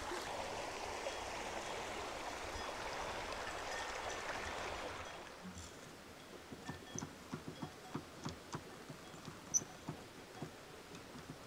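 Shallow stream running over stones, a steady rush for about five seconds that then stops. Only faint, scattered clicks and knocks follow.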